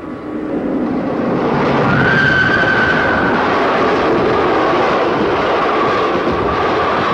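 Train running through a tunnel: a steady, dense rolling rumble that builds over the first couple of seconds and then holds. A thin high whine rises above it now and then.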